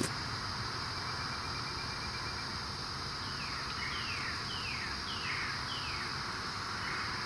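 Steady high insect drone, with a bird singing a run of five quick down-slurred notes about halfway through.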